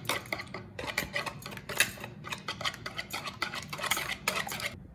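Stainless steel wire whisk beating raw chicken eggs in a mixing bowl: quick repeated clicking strokes of the wires against the bowl, stopping near the end.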